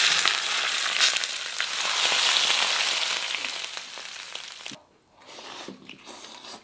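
Food sizzling in hot oil, a dense hiss that fades and stops about two-thirds of the way through, followed by a few faint knocks.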